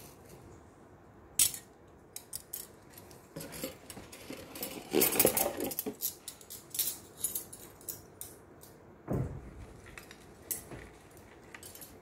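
Metal cutlery, including a gold-coloured spoon, clinking and clattering as it is handled and set down. The clatter is densest and loudest around the middle, and a dull thump follows near the end.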